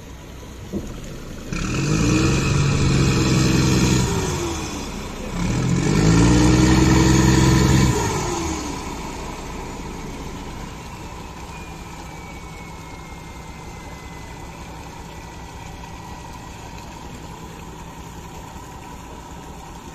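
Fishing boat's inboard engine revving up twice, each rev held for two or three seconds before falling away, then settling to a steady low idle.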